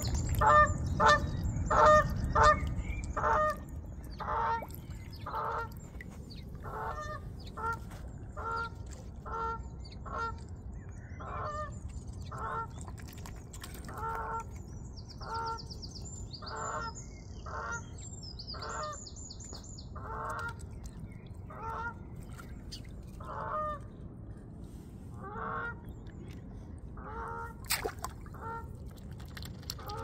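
Geese honking in a long, steady series of calls, louder and quicker in the first few seconds, then about one honk a second.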